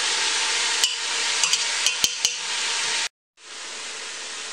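Pork pieces, onion, celery and bell pepper sizzling in an aluminium pressure-cooker pot as they cook down, with a utensil stirring and clicking against the pot several times. The sound cuts out briefly about three seconds in, then the sizzling goes on more quietly.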